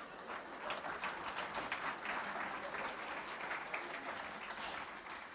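Audience applauding, a dense patter of many hands clapping that builds about half a second in and fades near the end.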